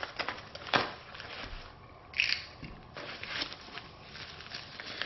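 Newspaper packing being handled, rustling and crinkling in short scattered bursts, with the loudest rustles about a second in and again a couple of seconds later.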